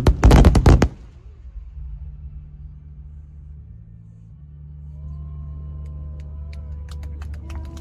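Fireworks: a rapid volley of loud bangs and crackles in the first second, then a low rumble, with crackling starting again near the end.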